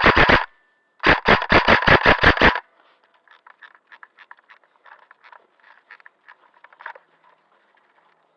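Airsoft electric gun firing full-auto bursts close to the microphone, about seven shots a second: one burst stops about half a second in, and a second runs for about a second and a half. After that come only faint scattered clicks.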